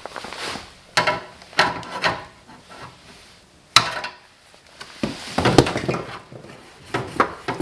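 Irregular sharp metallic knocks and clatters of a tool striking and prying at a knockout in a steel fire alarm panel cabinet to punch it out, louder and busier about five seconds in.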